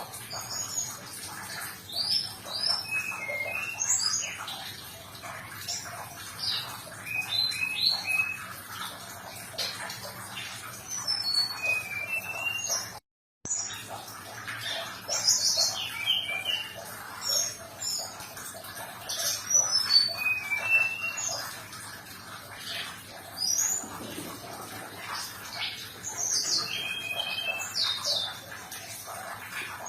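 Brown-chested jungle flycatcher (sikatan rimba dada coklat) singing: a continuous run of short, high whistled notes and quick rising and falling trills, with a brief cut in the sound about 13 seconds in.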